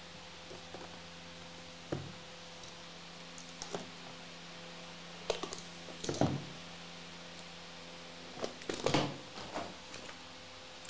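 Cardboard trading-card box being handled and opened on a desk: scattered taps, knocks and cardboard rustles, loudest about six seconds in and in a cluster around nine seconds, over a steady low hum.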